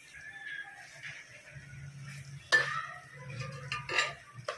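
Metal spatula scraping and knocking against a metal pot while chicken is stirred into gravy, with a sharp clank about two and a half seconds in and a few more near the end.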